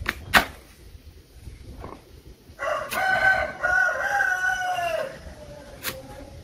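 A rooster crows once, a long call starting about two and a half seconds in that drops in pitch at the end. A knife knocks onto a wooden chopping board while cutting sweet potato; the loudest knock comes just before the crow, and two more fall during and after it.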